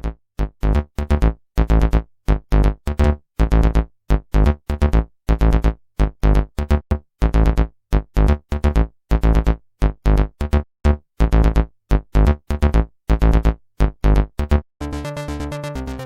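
Background electronic music: short synthesizer chord stabs chopped by brief silences, several a second, giving way to a steadier held passage about fifteen seconds in.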